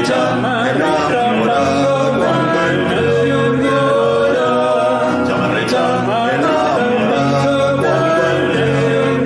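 Live folk music: a chamarrita sung by male voices over electric bass, acoustic guitar and keyboard.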